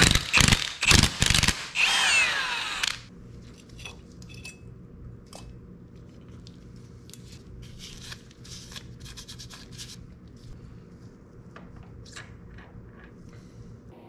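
Mechanic's tools working on a motorcycle clutch: a few loud, quick rasping strokes, then a longer rasping, whirring stroke that stops about three seconds in. After that come soft clicks and taps of small metal parts being handled.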